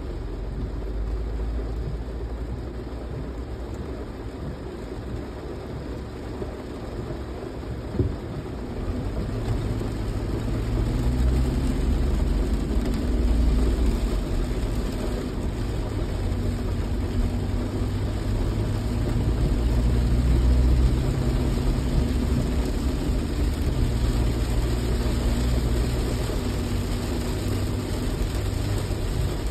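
Inside a car's cabin while driving in the rain: a steady low rumble of engine and road noise, with a light hiss of rain on the car. The engine hum swells and eases a few times. There is a single short knock about eight seconds in.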